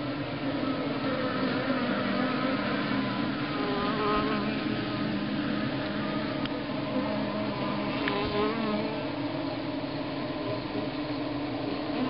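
Honeybee colony buzzing steadily on its comb inside the nest: the dense, even hum of thousands of bees clustered together, carrying several steady pitched tones.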